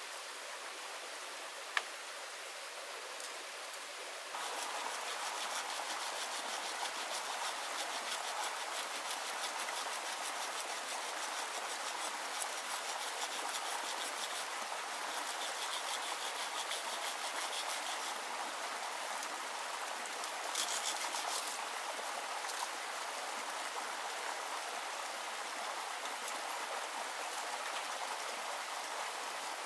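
Steady rushing of running water, a stream mixed with rain, getting louder about four seconds in.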